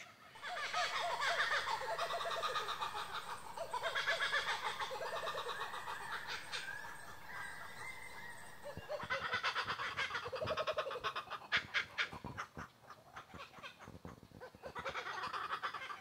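Birds calling outdoors in a chattering, rapidly pulsing chorus that swells and fades several times.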